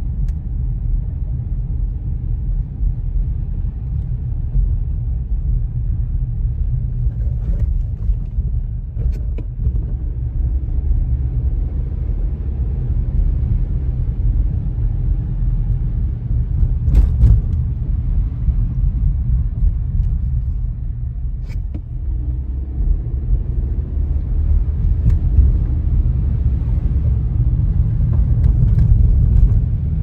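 Car driving on a snowy road, heard from inside: a steady low rumble of road and engine noise, with a few short sharp knocks along the way.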